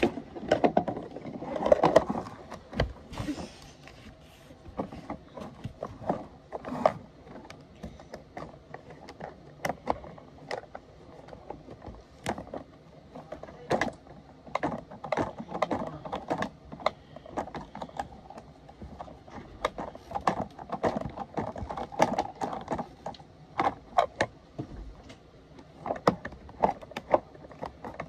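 Irregular plastic clicks, clacks and knocks from a toy garbage truck and a toy garbage can being handled, the truck's orange lifting arm working the can, with denser clattering about two seconds in and again around three quarters of the way through.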